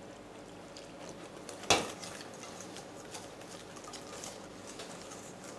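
Wire whisk stirring flour in a stainless steel bowl, with faint light ticks and scrapes of the wires against the metal. One sharp metal clink comes a little under two seconds in.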